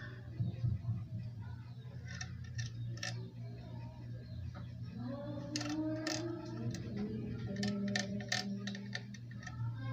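A steady low hum with scattered sharp ticks and clicks. From about halfway in, background music with singing comes up over it.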